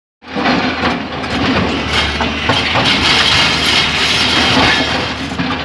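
Tata excavator's diesel engine running under load, with a low steady hum and scattered clanks and knocks from the working machine.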